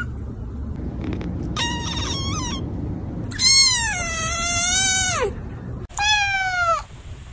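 Kittens meowing: three high meows, the middle one the longest, each falling in pitch as it ends.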